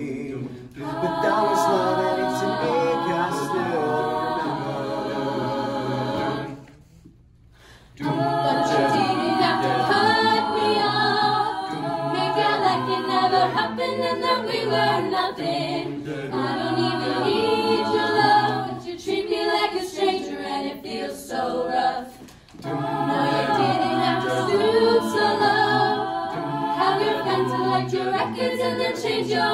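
A mixed-voice a cappella group sings in close harmony without instruments. About seven seconds in, the singing breaks off for roughly a second and a half, then resumes.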